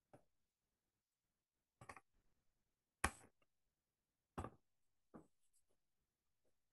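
A handful of short, light clicks and taps from hands handling a plastic stamping platform while a clear stamp is lined up. There are five in all, the loudest a sharper knock about three seconds in.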